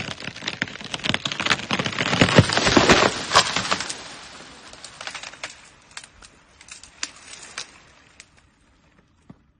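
Dead tree cracking and splintering as an elephant pushes it over: a dense run of wood cracks, loudest about two to three and a half seconds in as the tree comes down, then scattered snaps of breaking branches that die away.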